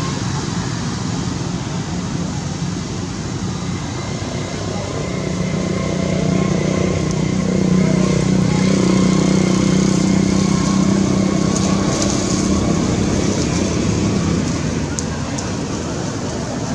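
Road traffic: a passing motor vehicle's engine grows louder, holds for several seconds in the middle, then fades, over a steady hum of traffic.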